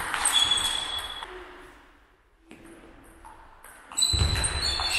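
Table tennis rally: the celluloid-type ball knocking off bats and table, ringing in a large echoing sports hall. The play stops for a moment about two seconds in, and a heavy thump comes about four seconds in.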